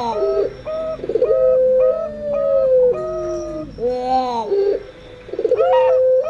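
Zebra doves (perkutut) and puter doves cooing together. Runs of short, quick notes overlap long falling coos and brief rolling trills, with the pattern repeating about every three seconds.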